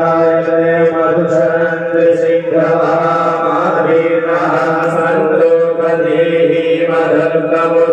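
Hindu mantras chanted by a voice in long, steady held tones, with brief pauses about two and a half seconds in and again near the end.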